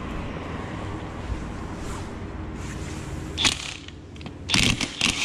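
Tool handling and a sharp click, then a DeWalt cordless impact wrench hammering in short bursts near the end, spinning off the 14 mm flywheel nut of a 110cc pit bike engine.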